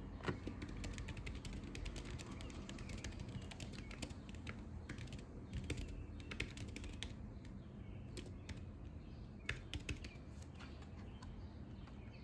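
Typing on a laptop keyboard fitted with a silicone key cover: a quick, irregular run of key clicks.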